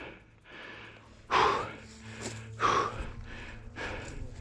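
A person breathing heavily right at the microphone, three loud breaths at an even pace about a second and a quarter apart, over a faint steady low hum.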